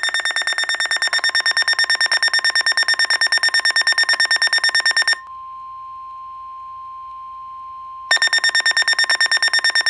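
Weather alert radio sounding a warning alert. A rapidly pulsing electronic buzz runs for about five seconds, then gives way to a steady single-pitched tone, the NOAA Weather Radio 1050 Hz warning alarm tone, for about three seconds. The pulsing buzz then returns for about two seconds before the broadcast voice begins.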